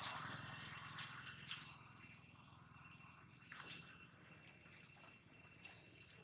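Faint outdoor ambience: insects droning with a steady high pitch, with a few brief sharp clicks or chirps scattered through.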